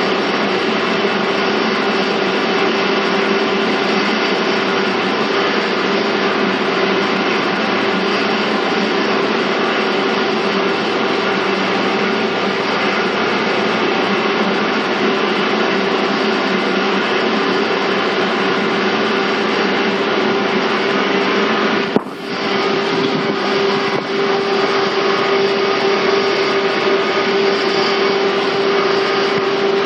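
Interior running noise of a 485-series electric train, heard in motor car MoHa 484-206: a steady rumble with a constant hum. About 22 seconds in comes one sharp click, and the noise briefly drops before returning.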